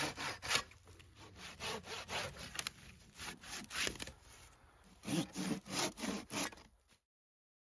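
Corona 18-inch RazorTOOTH pruning saw, a coarse-toothed hand saw, cutting through wood in fast back-and-forth strokes, about two a second. The sawing stops abruptly near the end.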